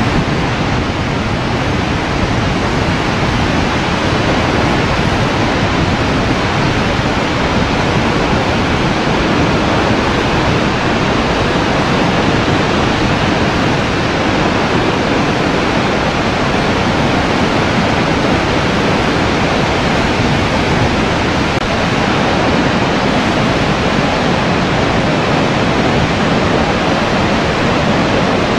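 Horseshoe Falls at Niagara Falls: the steady, loud rush of a huge volume of falling water, unbroken and even throughout.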